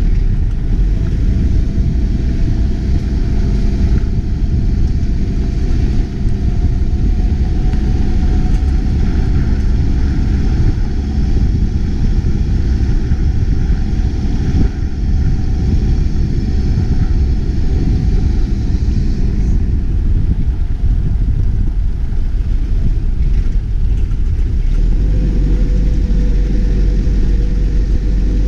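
Toyota Hilux 4x4 driving along a dirt track: a continuous loud rumble of engine and tyres on the dirt, picked up by a camera mounted on the outside of the truck. Near the end the engine note becomes steadier and stronger.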